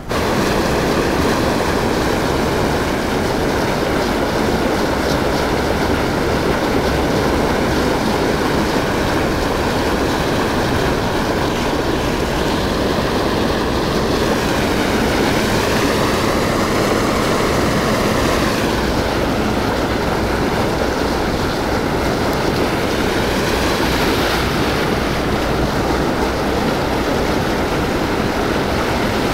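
Steady loud rush of river water churning below a weir, an even hiss with no breaks.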